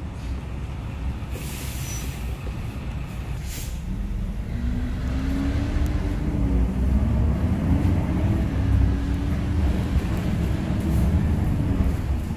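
Low-floor city bus heard from inside the cabin: two short air hisses, then the engine pulls away, its pitch rising, dropping briefly at a gear change and rising again as the bus gathers speed.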